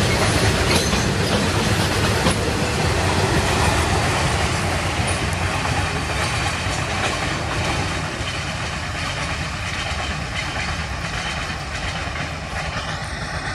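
Freight train of covered goods wagons rolling past, wheels clattering over the rail joints, the sound slowly fading as the last wagons and the brake van go by.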